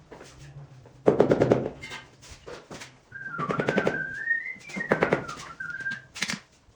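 Bursts of rapid tapping, about ten taps a second, come four times. A person whistles a short tune over them from about three seconds in.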